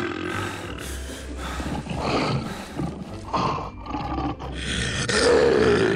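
Lion roaring, a sound effect in several rough bursts, loudest near the end.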